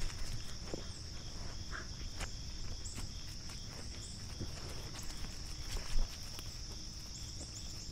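Steady, high-pitched insect chorus, with scattered light footsteps and taps and one louder knock about six seconds in.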